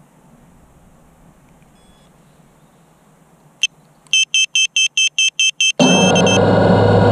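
Faint background hiss, then a click and a quick run of about nine short, high electronic beeps. Near the end a much louder, steady hum with several pitches starts suddenly.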